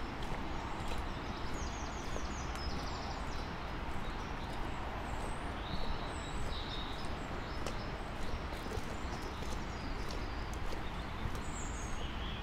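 Outdoor walking ambience: footsteps on the road surface over a steady rushing background, with small birds chirping in three short bouts.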